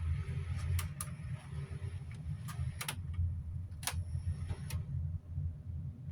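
Rechargeable camping fan's motor running with a steady low hum, while plastic switches on its control panel click about six times at irregular intervals.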